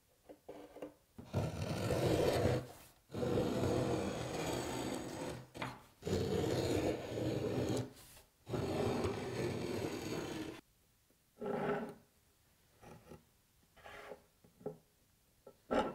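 A marking gauge drawn along the end of a wooden panel, its cutter scribing a baseline into the wood: four long strokes of about two seconds each, then a few faint short scrapes and taps.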